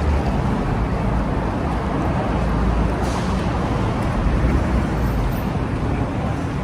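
Steady road traffic noise: a continuous low rumble of passing vehicles with no single standout event.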